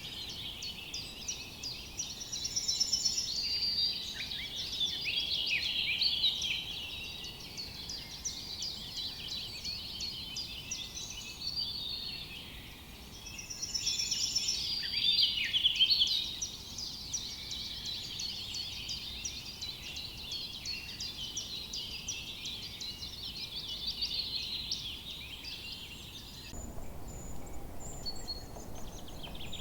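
Dense chorus of many small forest songbirds, with rapid overlapping chirps and trills. Near the end the chorus cuts off abruptly, leaving a few scattered calls over a low rushing noise.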